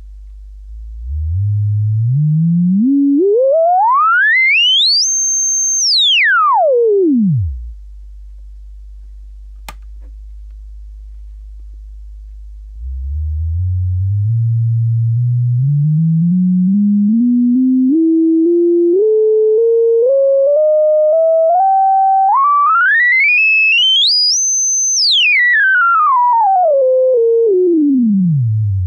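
Hikari Instruments SINE eurorack oscillator putting out a pure sine tone as its frequency slider is pushed up and back down. First comes a quick glide from a low hum up to a high whistle and back down. After a pause, a slower climb in small steps rises to the high whistle and glides back down to the low hum.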